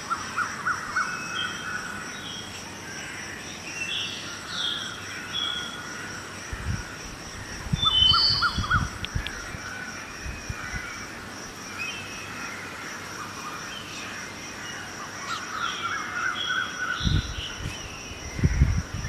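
Songbirds chirping and crows cawing in a dawn chorus over a steady high-pitched tone. Wind buffets the microphone in low rumbles about seven to nine seconds in and again near the end.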